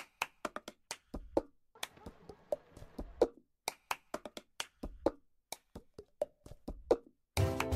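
Cup-game percussion: hand claps, taps and a cup knocked down on a tabletop in a quick, uneven rhythm. Just before the end, the backing music comes in.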